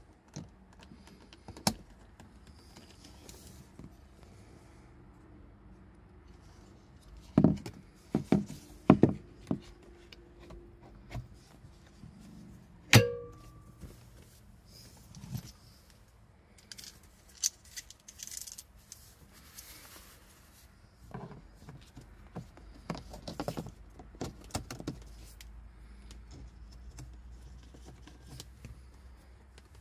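Clicks, knocks and rattles of plastic and metal from hands working in a car dashboard as a replacement speaker is wired, seated in its dash opening and covered by the grille. The loudest is a sharp knock a little before halfway with a brief ringing after it, following a cluster of knocks a few seconds earlier.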